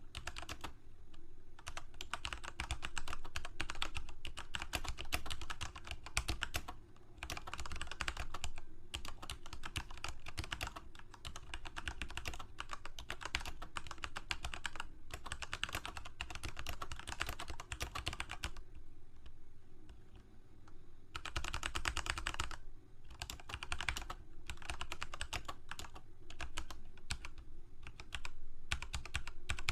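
Computer keyboard typing: continuous rapid key clicks in runs of a few seconds, broken by short pauses, the longest just before the twentieth second.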